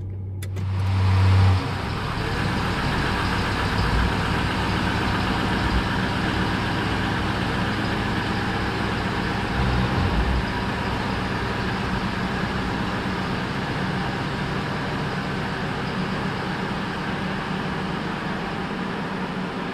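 Rebuilt police car's engine running at idle, a steady sound. A louder low hum swells over the first second and a half and then cuts off.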